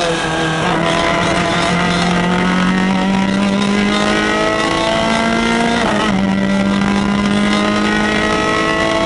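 Peugeot 205 F2012 rally car's engine heard from inside the cabin under hard acceleration, its pitch climbing steadily, with a gear change about six seconds in, after which it pulls up through the revs again.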